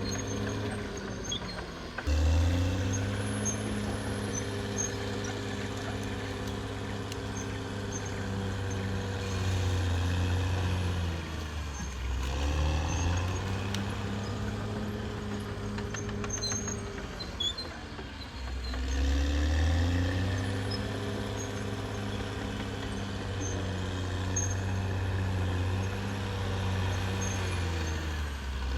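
Caterpillar D6R XL bulldozer's diesel engine running under load, its pitch rising and falling as the throttle and load change: it picks up sharply about two seconds in, sags and recovers twice in the middle, and drops again near the end.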